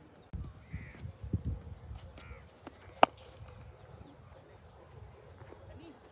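Crows cawing a few times, with a low rumble in the first couple of seconds. About three seconds in comes a single sharp crack, the loudest sound.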